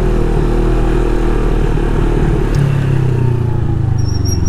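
CFMoto 400NK motorcycle's parallel-twin engine running while riding in town traffic. About halfway through the engine note changes and then falls slowly as the bike eases off.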